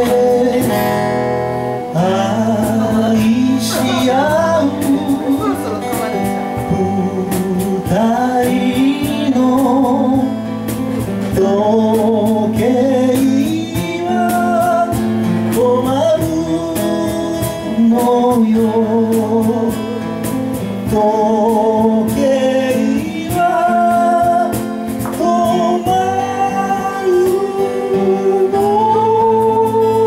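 A man singing a slow folk ballad to his own acoustic guitar accompaniment, holding a long note near the end.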